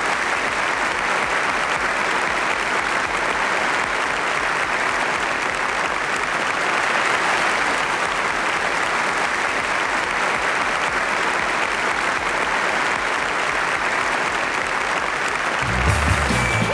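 Audience applauding steadily. Near the end, music starts up over it.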